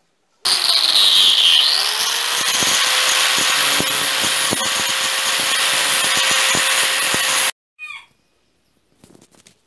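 Angle grinder spinning up and grinding the teeth of a steel brush-cutter blade to sharpen them: a loud, steady grinding noise over the motor's whine. It stops abruptly about seven and a half seconds in.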